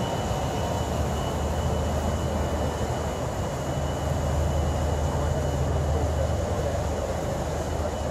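River cruise ship under way: a steady low engine rumble under a broad wash of noise, with a faint steady high whine.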